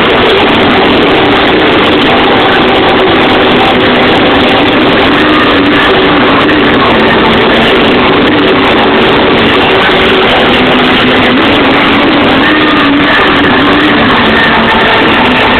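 Loud live dance music from a club sound system, so overloaded on the recording microphone that it comes through as a dense, distorted wash with only a few faint held tones showing through.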